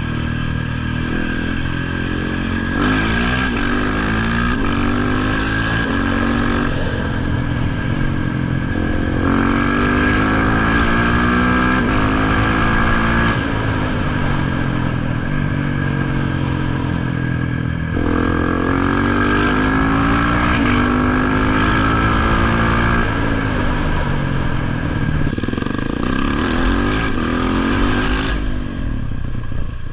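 KTM 690 SMC R's single-cylinder engine running, its pitch repeatedly rising and falling in four main surges.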